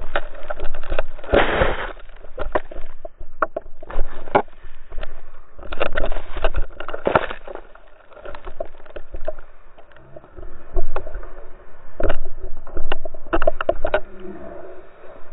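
A snowboarder tumbling and sliding down a snowy slope in a fall: rough scraping and sliding through the snow, with many irregular knocks and thumps as the body, board and camera hit the snow.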